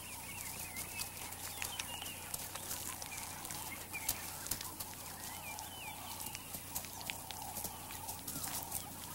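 Jackal pups feeding on a guinea fowl carcass: irregular crunching and tearing clicks of bones and feathers being pulled apart, with a few short, high squeaky calls among them.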